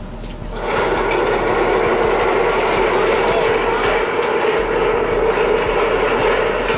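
A steady engine or motor hum sets in about half a second in and runs on at an even pitch.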